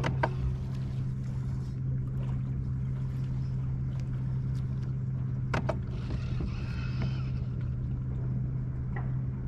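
Steady low hum of a small electric motor aboard the bass boat, with a few sharp knocks just after the start and again about five and a half seconds in.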